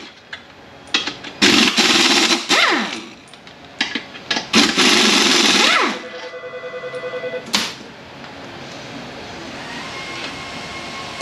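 Air tool zipping out the 13 mm bolts on a manual transmission's center support in two bursts of about a second and a half each, followed by a single sharp clack. Background music plays quietly in the shop.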